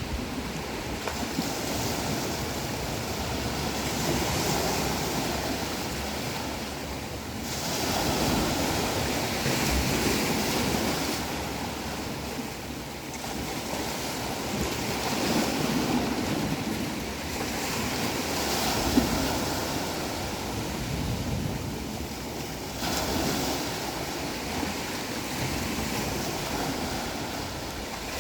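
Ocean waves breaking on the shore, the surf swelling and easing in slow surges every few seconds, with wind.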